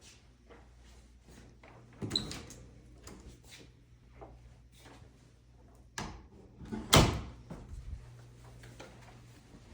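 A door being opened and shut: a knock about two seconds in, another about six seconds in, and the loudest, sharp bang about seven seconds in, with faint clicks between.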